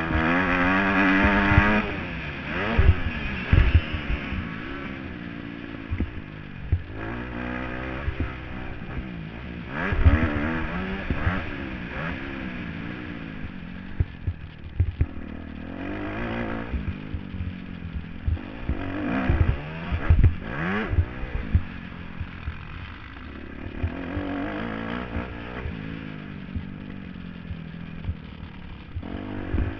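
Kawasaki KX250F single-cylinder four-stroke motocross bike being ridden hard, its engine pitch rising and falling again and again as it revs up and backs off, with frequent knocks and clatter over the rough track.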